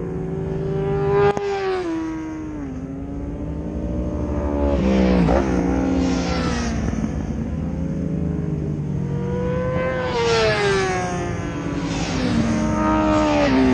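Racing motorcycles going by on the circuit, each engine note rising and then falling away in pitch as it passes, about four times, over a steady low drone.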